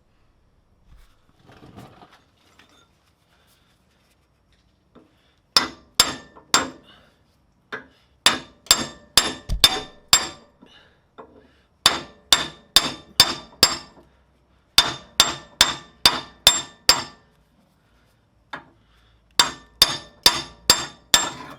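Hammer blows on steel, each with a metallic ring, coming in runs of four to six strikes at about two to three a second with short pauses between. A steel rod welded to a Hummer H2's torsion bar is being beaten to drive the stuck bar forward and out.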